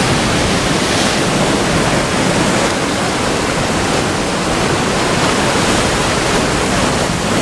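Sea surf breaking and washing over a rocky shoreline, a steady loud rushing of water.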